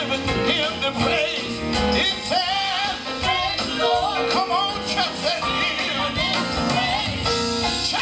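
A gospel vocal group singing live over a band of drums and keyboard, heard through a PA system.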